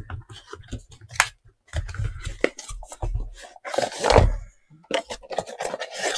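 Cardboard packaging being opened and handled: scraping, rustling and light knocks of cardboard and plastic, with a longer scraping slide about four seconds in as the wall switch is pulled out of its cardboard sleeve.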